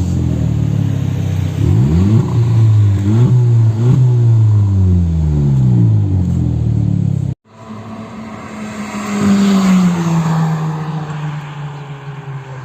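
Audi A3 1.8 turbo four-cylinder running through a new aftermarket exhaust muffler and resonator, being revved in several quick blips that each fall back slowly. After an abrupt break about seven seconds in, the engine note holds steadier, swells, then drops in pitch and fades.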